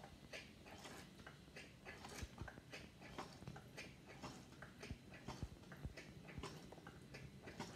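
Faint, irregular small clicks and patters from a toy doll bathtub's hand shower spraying water over a doll's hair.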